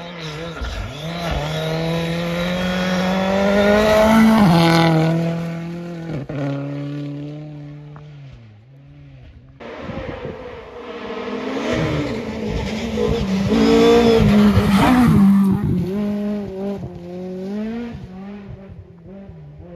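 Rally cars speeding past on a gravel stage, one after another. The first engine climbs in pitch as it approaches, drops sharply as it passes about four seconds in, and fades away. After a sudden break a second car comes through, its engine revving up and down, loudest about fourteen seconds in, then fading.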